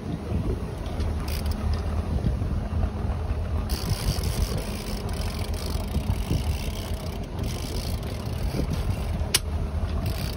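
Boat's engine running steadily at trolling speed, a low rumble under wind and water noise. A single sharp click comes near the end.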